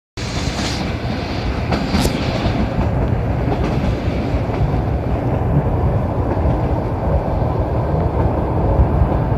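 Russian suburban electric train (elektrichka) running along the track: a steady low rumble with the wheels knocking over the rail joints, and a brief sharp click about two seconds in.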